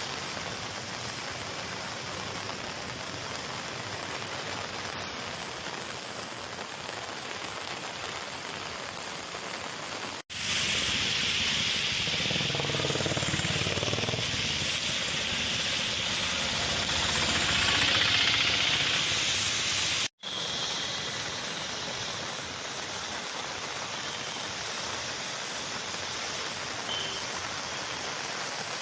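Heavy rain falling in a steady hiss, in three clips cut together; the middle one, from about ten to twenty seconds in, is louder and brighter.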